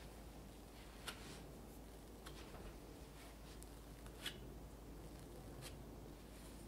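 Long metal spatula spreading thick whipped cream across a sponge cake sheet: faint soft scraping and smearing, with three light clicks.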